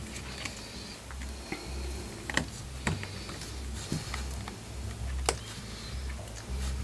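Faint clicks and taps of fingers handling a smartphone, a handful spread a second or so apart, over a low steady hum.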